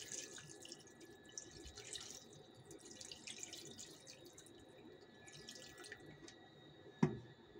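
Water poured from a plastic bottle into a metal cooking pot of soaked chickpeas and mutton, a faint trickling and splashing that thins out about six seconds in. A single sharp knock near the end.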